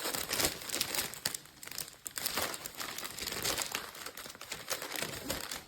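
Packaging crinkling and rustling in irregular bursts as the magnetic board is pulled out of it by hand.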